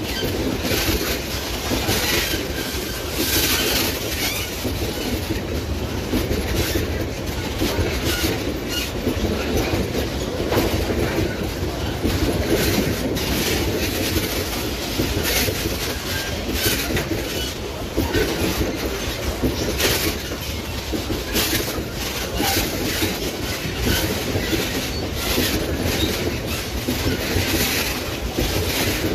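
Loaded freight train's gondola wagons rolling past close by, a steady rumble with steel wheels clattering irregularly over the rail joints.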